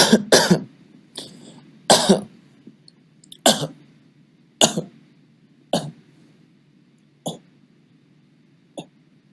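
A man coughing in a series of short coughs, loud and close together at first, then further apart and fainter.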